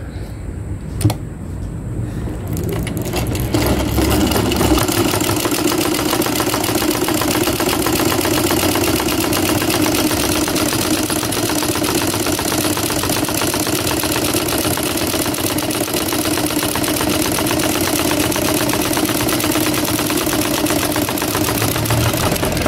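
Yamato domestic sewing machine stitching a seam in thin fabric: a click about a second in, then the machine's needle-and-hook mechanism starts running, grows louder over the next couple of seconds and keeps up a steady, even clatter.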